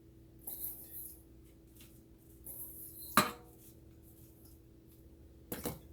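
Seasoning containers and kitchen items handled on a counter: soft rustling, one sharp knock about three seconds in, and two quicker knocks near the end.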